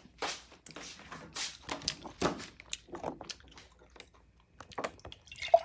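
Food being bitten and chewed close to the microphone: irregular mouth clicks, with a louder click near the end.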